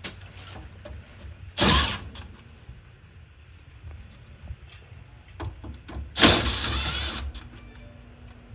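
Two loud rushing bursts of noise, a short one about two seconds in and a longer one about six seconds in. Right after the second, a steady low motor hum starts up: the furnace's motor coming on in answer to a call for heat.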